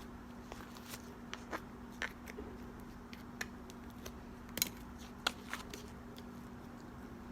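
Butter slime being worked, giving irregular small sticky clicks and pops, a few louder ones about four and a half and five seconds in, over a faint steady hum.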